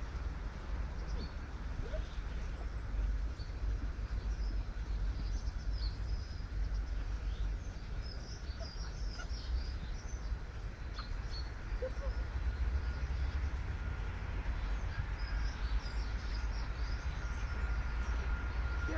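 A low, steady rumble of wind on the microphone, with small birds chirping in the background, busiest in the middle and again near the end.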